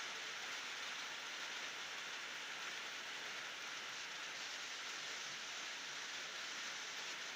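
Steady rain falling, an even hiss of many drops with no thunder.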